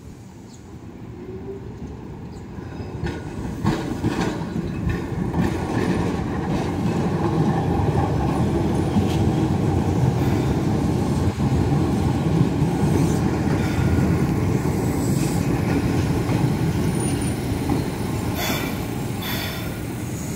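Keihan 600 series two-car tram running past close by on street track: a low rolling rumble that builds over the first few seconds and holds steady, with its wheels clacking over rail joints and the crossing as it comes on and again near the end.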